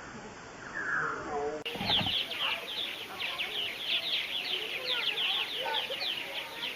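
Purple martin calls slowed down into low, drawn-out descending glides, then about 1.7 s in a cut to a purple martin colony chattering at normal speed, a dense run of rapid high chirps.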